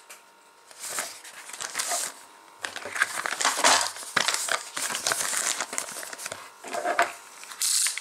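Paper instruction sheets rustling and crinkling as they are handled and flipped over. The rustling starts about a second in and comes in irregular bursts.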